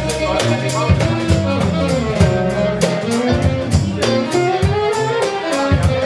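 Live funk band playing: a saxophone lead line over electric bass, electric guitar and a drum kit keeping a steady beat.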